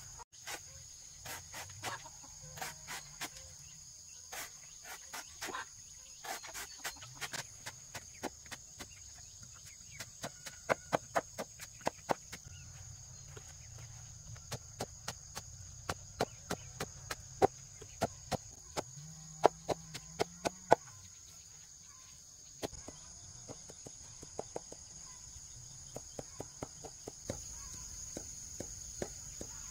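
Sharp knocks, single and in quick runs, over steady cricket chirring.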